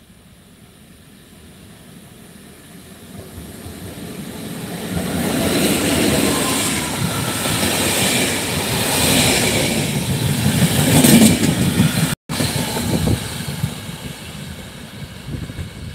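Passenger train passing at low speed, its wheels clattering over the rail joints. The sound swells as the train approaches, is loudest as the coaches go by, and fades as it pulls away, with a momentary dropout about twelve seconds in.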